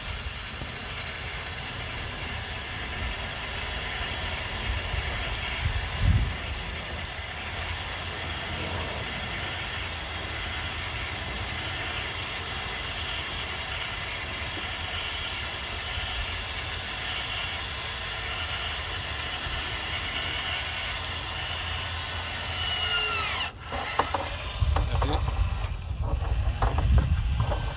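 Machinery running with a steady hiss and rubbing, with a single louder knock about six seconds in. About 23 seconds in a whine falls steeply in pitch, and louder low rumbling and knocking follow.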